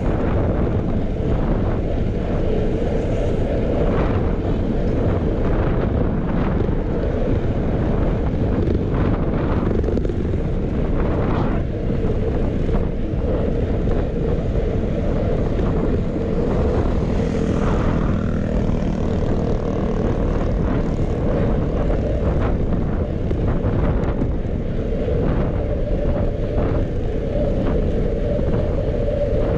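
Steady wind rush over a bicycle rider's microphone while riding, with a constant hum of tyre and road noise.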